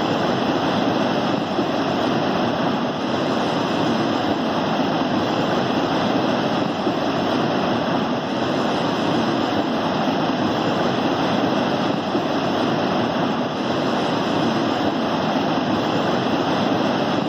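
River water pouring over a check dam in a steady, continuous rush.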